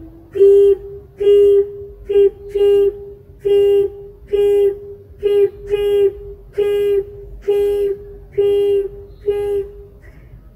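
A high-pitched voice saying "peep" over and over, about a dozen short, level-pitched peeps, each followed by a brief pause, with a couple of peeps coming closer together.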